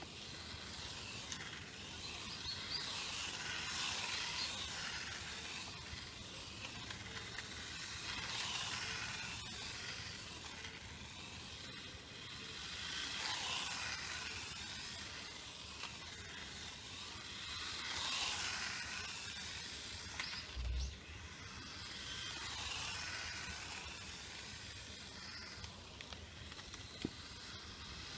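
Wltoys K989 1:28-scale RC car running on asphalt: its small electric motor and gears whine with tyre hiss, swelling and fading about every four to five seconds as the car drives to and fro. A short low thump comes about three quarters of the way through.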